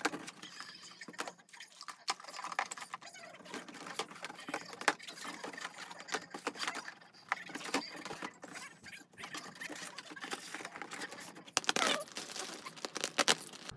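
Handling noises: irregular clicks and knocks as the plastic drawers of a rolling storage trolley are pulled open and the things inside knock together. Near the end there is a close run of louder rustling and knocks as a plastic-wrapped bedding pack is handled.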